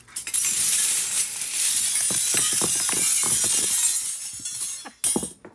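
A large heap of silverplated flatware (spoons, forks and knives) poured over a person, clattering and jangling as the pieces rain down and strike each other and the floor for about four seconds. A short last clatter comes near the end.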